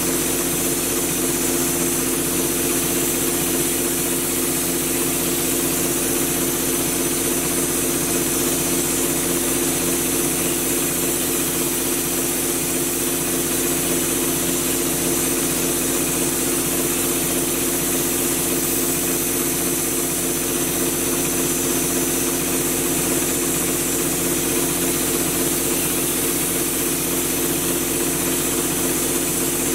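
Air compressor running steadily to feed a drywall texture hopper gun, with the hiss of air and orange-peel mud spraying from the gun.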